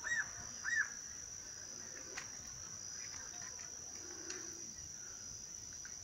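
Steady high-pitched insect drone, with two short arched bird chirps in the first second and a couple of faint ticks later on.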